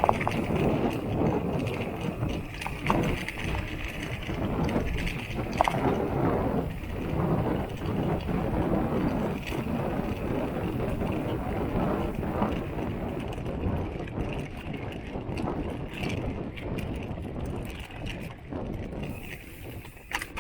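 Mountain bike ridden over rough ground: steady tyre and frame noise with irregular clicks and rattles, the sound of the water bottle cage rattling.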